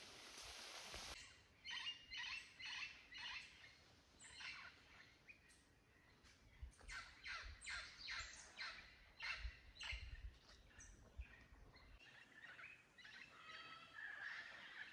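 Faint tropical forest birds calling: a long series of short, harsh calls repeated two or three times a second, with whistled notes toward the end.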